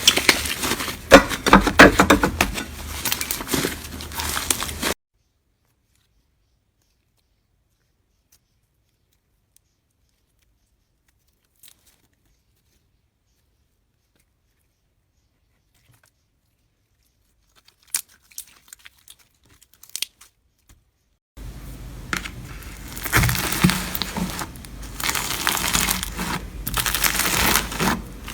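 Slime squeezed and worked by hand, a dense crackling and popping. The sound cuts to dead silence for about sixteen seconds, with a few faint clicks near the end of the gap, then the crackling squishing resumes.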